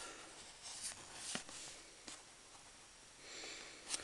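Faint handling noise of plastic miniatures on round bases being picked up and moved about on a tabletop, a few light clicks over a steady hiss.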